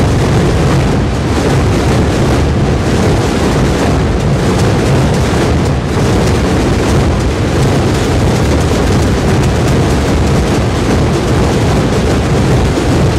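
Massed drumming of a Calanda tamborrada: many rope-tensioned snare drums (tambores) and large bass drums (bombos) beaten together in a loud, dense, unbroken din with no single beat standing out.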